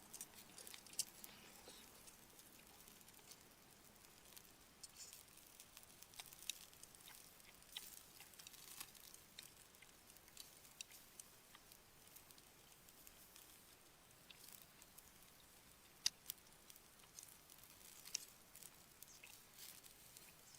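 Faint, scattered crackles and ticks from charcoal burning in a small steel BBQ grill, a few sharp clicks every second or so with near silence between.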